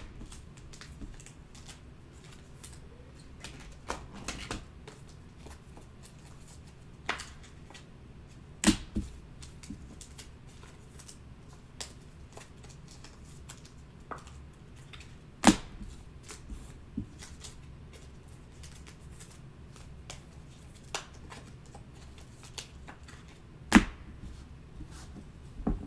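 Sparse light clicks and taps, with three sharper knocks spread through, over a faint steady low hum.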